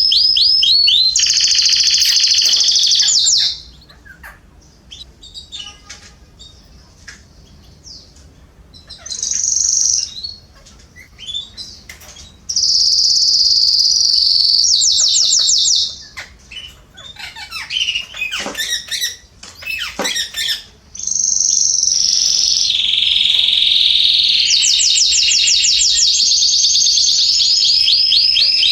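Domestic canaries singing: three long, loud song phrases of rapid rolling trills, with quieter scattered chirps and calls between them.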